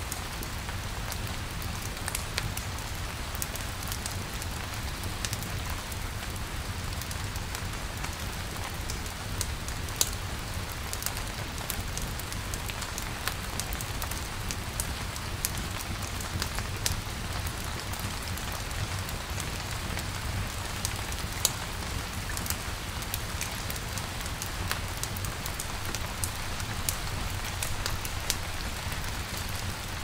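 Steady rain falling on a surface, with scattered sharp ticks of individual drops, over a crackling campfire.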